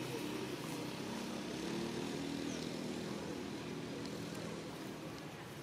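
Distant engine drone: a steady hum of several low tones that swells and then slowly fades away.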